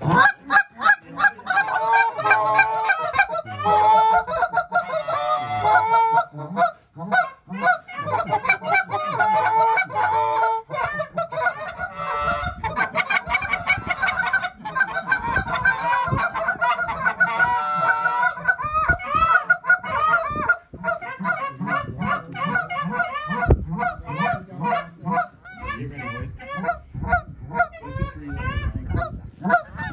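Canada geese honking and clucking, many calls overlapping in quick succession, turning into shorter, clipped clucks in the second half.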